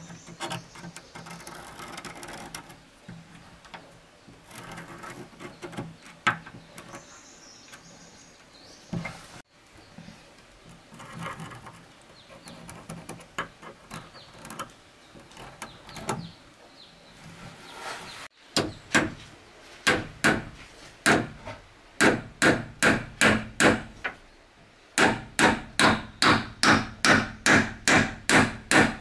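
Hammer striking a nail through a metal door hinge into a wooden door frame. Quiet handling and rubbing at first, then a steady run of sharp hammer blows, about three a second, from about two-thirds in, with a brief pause before they resume.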